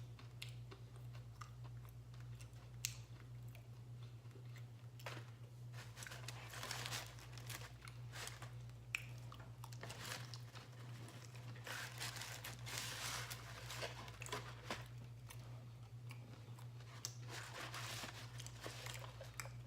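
Close-up chewing and crunching of a crisp tostada shell, in clusters of crackly bites, over a steady low hum.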